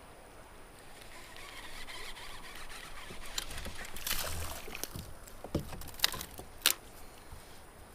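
Kayak out on moving river water: a hiss of water that swells for a few seconds, then a handful of sharp knocks and clicks against the boat and gear, the loudest two near the end.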